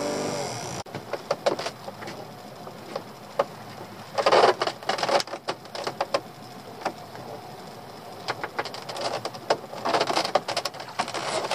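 Lobster pot rope being hauled by hand over the side of a small open boat: irregular knocks and clicks, with two louder spells of noisy rustling and water, about four seconds in and again near the end, as the pot comes up.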